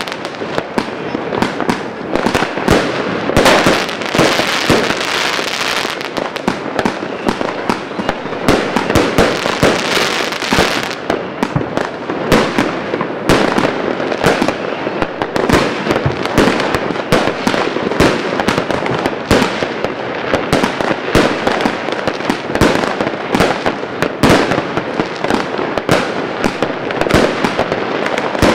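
Rambam 3.0 multi-shot consumer fireworks cake by Evolution Fireworks firing a continuous rapid string of shots and bursts, several a second, without a break.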